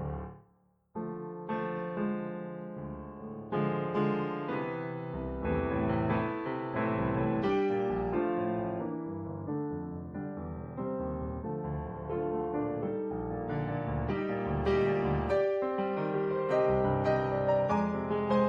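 Solo piano music playing chords and a melody. It cuts out briefly just after the start and then resumes.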